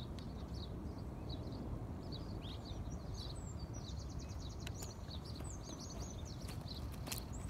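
Small birds chirping, with a rapid trill a few seconds in, over a steady low outdoor background rumble.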